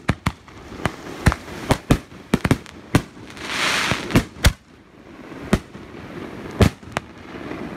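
Fireworks going off: more than a dozen sharp bangs at irregular intervals, with a short hiss a little past three seconds in.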